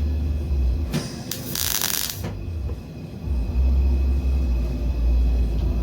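Short MIG welding tack: a brief sharp crackling hiss about a second and a half in, lasting under a second and preceded by a couple of clicks, over a steady low rumble.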